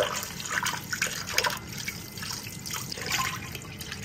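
Kitchen tap running into a steel bowl in a stainless-steel sink, splashing unevenly as hands rub and rinse lobster meat under the stream.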